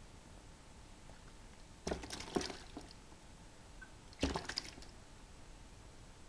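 Two short bursts of wet crackling and squelching, about two seconds apart, from a hand handling a horned frog in a damp plastic tub.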